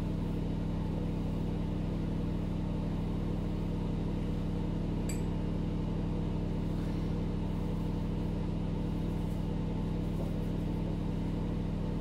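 A steady low machine hum runs throughout, with one brief sharp click about five seconds in.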